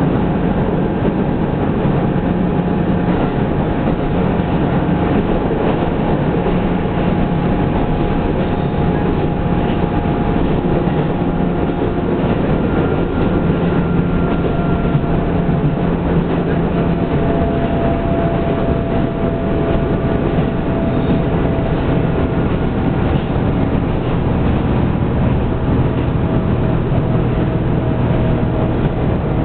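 Steady running noise inside a diesel railcar under way: the engine drone together with the wheels rumbling on the rails, with a few faint steady tones above it.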